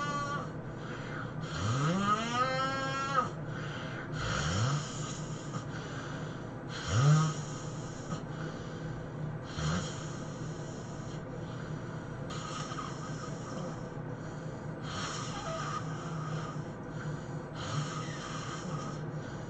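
A person snoring heavily in sleep, one noisy breath roughly every three seconds. About two seconds in, one snore rises sharply in pitch, and a short, loud snort comes about seven seconds in.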